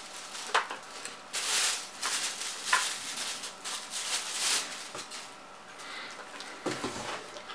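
Plastic bubble wrap rustling and crinkling in several bursts as it is pulled off a tripod's steel legs, with a few light clicks and a dull knock near the end.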